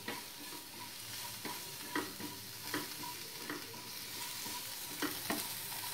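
Spice masala and tomato frying in oil in a non-stick kadai, a steady sizzle, while a spatula stirs and scrapes across the pan every second or so.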